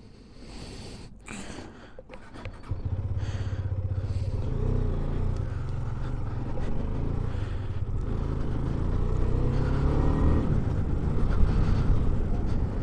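Husqvarna motorcycle engine running, then pulling away about three seconds in and getting louder as the bike accelerates, its pitch rising and falling with the throttle.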